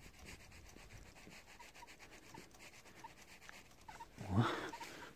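Faint rubbing and handling noise from a hand working at a motorcycle carburettor, with a louder rub about four seconds in.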